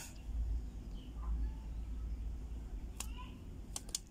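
Low rumble of a hand-held phone being handled, with a few sharp clicks near the end and a faint short chirp.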